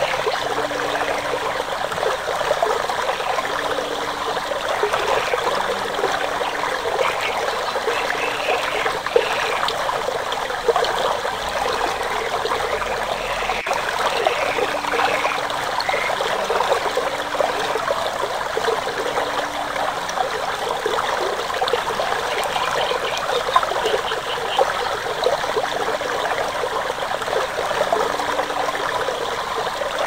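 Stream water running and trickling steadily over rocks.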